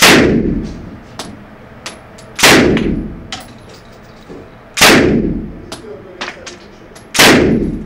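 PPSh-41 submachine gun in 7.62×25 mm Tokarev firing four single shots, about two and a half seconds apart, each report with a long echoing tail in an indoor range. Fainter clicks and clinks come between the shots.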